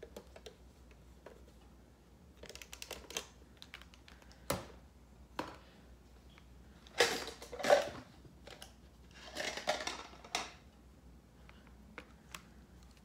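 Makeup items being handled on a table: scattered clicks and taps, with louder rustling and clattering about seven seconds in and again about nine to ten seconds in.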